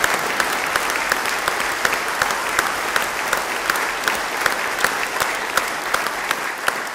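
Audience applauding: dense, steady clapping from a hall full of people, with one close pair of hands standing out at about three claps a second.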